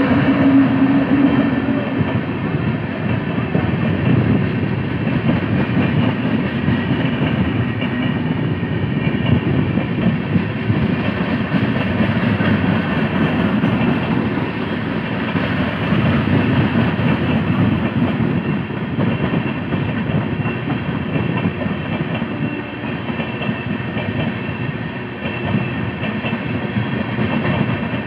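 Indian Railways express train passing close by: the electric locomotive goes past at the start, then a long rake of LHB passenger coaches rolls by, a steady rumble and clatter of wheels on the rails.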